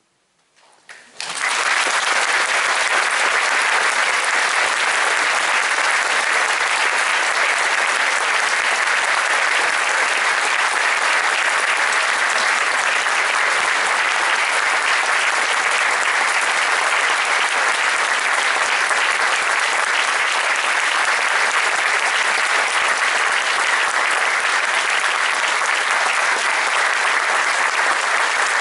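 Audience applause breaks out about a second in, after a brief silence, and carries on as steady, dense clapping.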